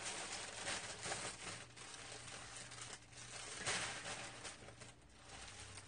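Thin plastic bag crinkling and rustling in irregular handling noise, loudest in the first second, as pre-cut green onions are shaken out of it onto a plastic cutting board.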